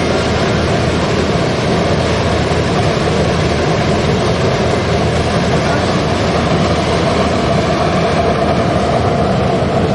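BOLIDA Rotexmaster wood-pellet biomass burner running with flame jetting from its nozzle: a loud, steady rushing noise of its combustion blower and flame.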